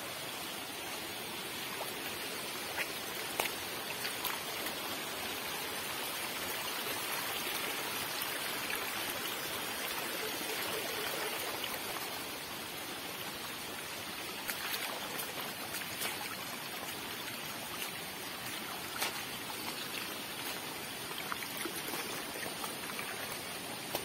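Shallow water running and trickling over the rocks of a wet forest path, a steady rushing hiss that is a little louder in the middle, with a few scattered taps of footsteps on the wet stones.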